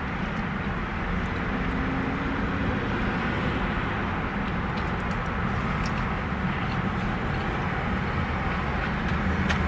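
Steady low rumble and hiss of a car's interior, with a couple of faint clicks.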